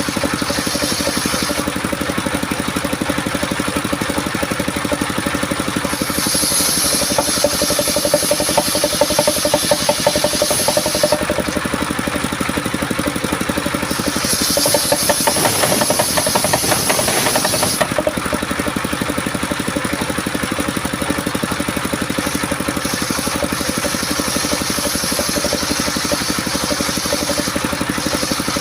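Engine-driven homemade sawmill running steadily, with its blade biting into coconut-palm wood twice, from about 6 to 11 seconds and again from about 14 to 18 seconds, each cut adding a louder crisp, hissing rasp over the engine.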